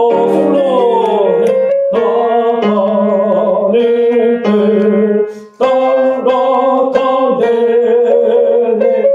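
Music from a tenor-part practice track: held notes, sung or played, over accompaniment. There is a downward glide about a second in and a brief break about five seconds in.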